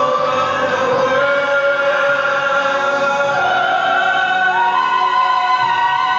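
Live singing with musical accompaniment over a hall's sound system: long held notes, one stepping up to a higher held note about four and a half seconds in.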